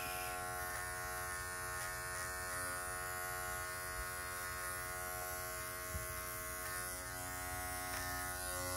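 Pink Wahl electric pet clipper running with a steady, even-pitched buzz while it is worked through a curly-coated dog's fur.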